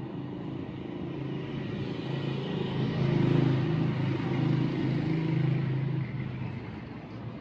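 A motor vehicle's engine passing close by on the street, growing louder to a peak about three to six seconds in and then fading.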